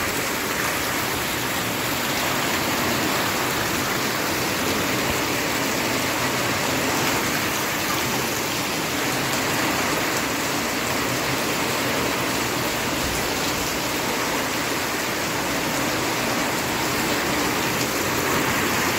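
Steady rain falling on wet concrete paving and stone steps, an even, unbroken hiss of water.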